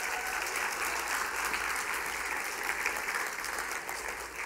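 Church congregation applauding, a steady wash of clapping that tapers off near the end.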